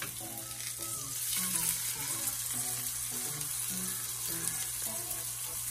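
Salmon fillet sizzling in hot olive oil in a frying pan, with pressed garlic frying beside it: a steady crackling hiss. Soft background music with a simple melody of held notes plays under it.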